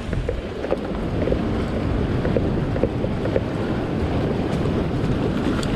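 Steady wind noise on the microphone over sea waves washing against a rock shelf.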